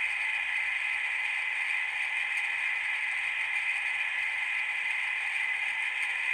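Two Athearn N-scale mechanical reefer cars' sound decoders playing the refrigeration unit's running sound through tiny onboard speakers: a steady, tinny mechanical hum and hiss with little bass, at factory volume and echoing off hard walls.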